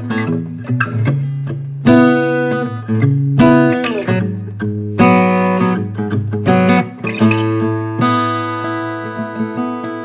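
A GWG 00-size acoustic guitar with a Sitka spruce top and mahogany back and sides, fingerpicked: a bass line rings under picked treble notes, with harder plucks now and then.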